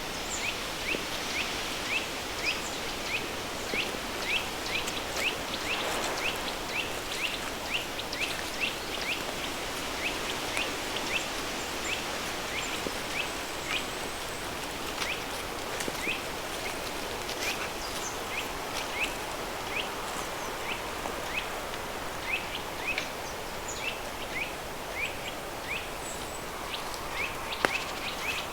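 Flowing river stream blended with a steady pink-noise hiss. Over it a small bird repeats a short high chirp about twice a second, thinning out to scattered chirps after the midpoint.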